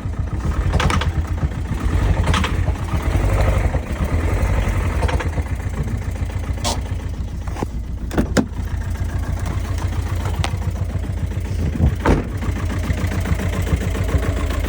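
Vehicle engine running with a rapid, steady knocking, the sign of internal damage that the owner puts down to a struck piston. It runs a little louder for the first few seconds, with a few sharp clicks here and there.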